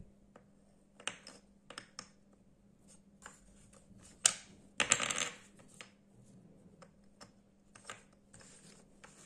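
Wooden jigsaw puzzle pieces clicking and knocking against each other and a wooden tabletop as they are picked up and fitted together: scattered light taps, with the loudest clatter about four to five seconds in.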